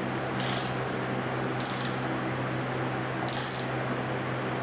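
Socket ratchet clicking in three short bursts about a second and a half apart as it turns the forcing screw of a harmonic balancer puller on an outboard motor's flywheel.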